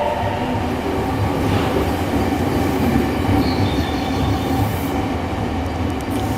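Nagoya Municipal Subway 6000 series train running on the rails: a steady rumble with a low motor hum and rail noise.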